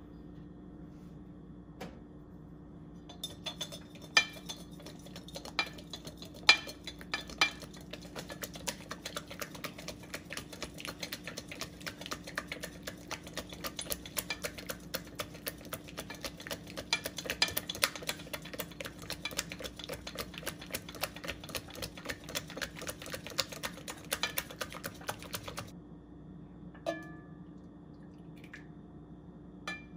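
A silicone-coated balloon whisk beating egg yolks in a glass bowl: rapid, continuous clicking and tapping against the glass. It starts a few seconds in and stops abruptly near the end.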